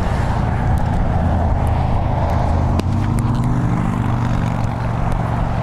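Road traffic with a steady low engine rumble, and a single light click about three seconds in.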